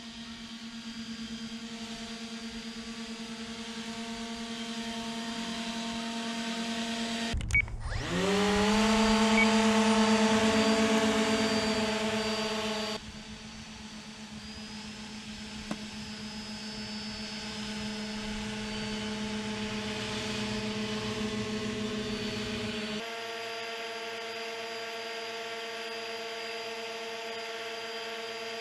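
Motors and propellers of a radio-controlled skirtless hovercraft running with a steady whine. About seven seconds in the sound breaks off for a moment and comes back louder, rising in pitch, then settles at a steady pitch again.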